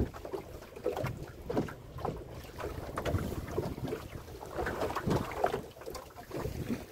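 Wind buffeting the microphone aboard a boat at sea, coming in uneven gusts.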